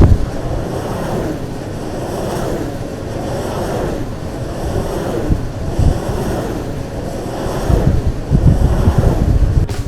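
Wind buffeting the camera microphone in a steady loud rush, with heavy low thumps from stronger gusts in the last two seconds.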